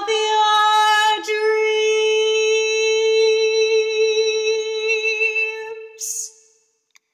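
A woman's voice singing, unaccompanied, holding one long steady note for about five seconds after a brief change of syllable about a second in, then ending with a short breathy hiss about six seconds in.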